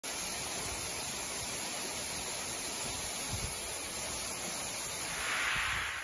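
Steady rushing hiss of a 65 m two-tier mountain waterfall, a little louder near the end and beginning to fade out.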